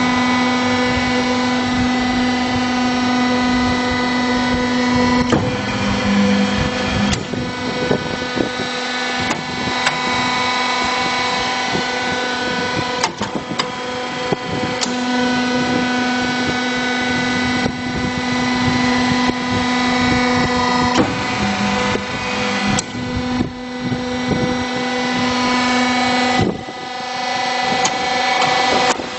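Wood block making machine running under test: a steady mechanical drone with a motor hum whose lowest tone drops out and comes back a few times, and occasional sharp clicks.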